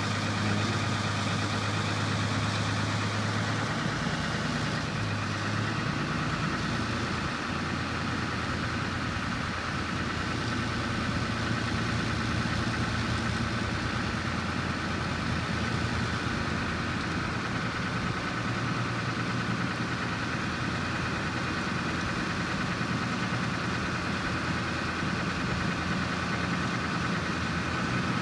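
Ward LaFrance M1A1 wrecker's engine running steadily as it drives the winch, pulling a dead 55-ton Chieftain tank. The low engine note shifts about four seconds in.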